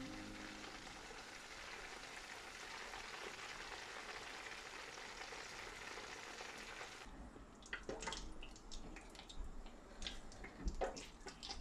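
Chicken pieces deep-frying in hot oil in a wok, a steady sizzle. About seven seconds in the sizzle stops short and a few light clinks and knocks follow.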